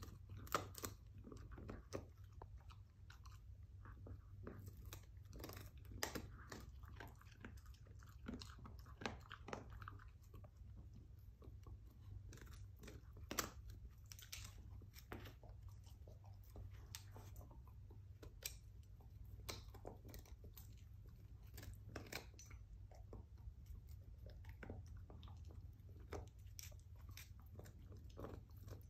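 A dog gnawing on a rawhide chew bone, with faint, irregular crunches and clicks as its teeth work the hide.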